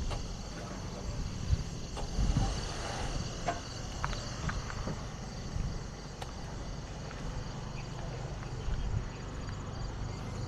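Steady, pulsing chirring of insects, with a few scattered clicks and a low rumble underneath.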